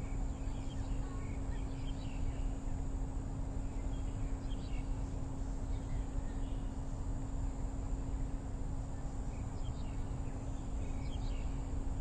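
Small birds chirping faintly in short, scattered calls over a steady low hum and rumble of background noise.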